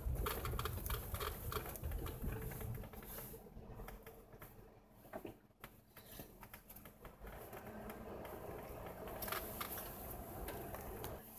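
Tyres crunching and crackling over packed snow and ice as a vehicle rolls slowly, heard from inside the cabin. A low rumble fades over the first few seconds, and the crackling thins out mid-way before picking up again near the end.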